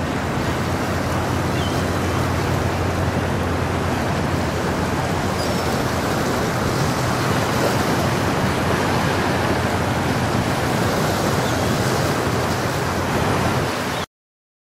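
Steady wind and water noise with a low steady hum from the passing lake bulk freighter. It cuts off suddenly near the end.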